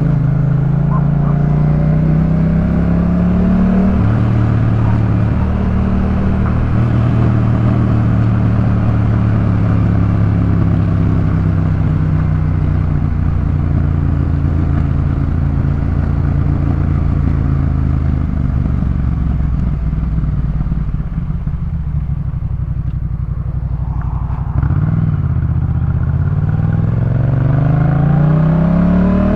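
Yamaha MT-07's parallel-twin engine through a Jeskap K4 full aftermarket exhaust while riding: the note climbs under acceleration, drops at a gear change about four seconds in, then holds steady while cruising. It eases off and quietens around twenty seconds in, then picks up sharply near the end and climbs again under hard acceleration.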